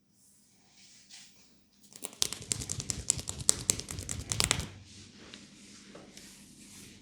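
Fingers rubbing and scratching quickly through hair and scalp in a head massage. A dense, rapid crackling rustle starts about two seconds in, lasts about two and a half seconds, then drops to softer rustling.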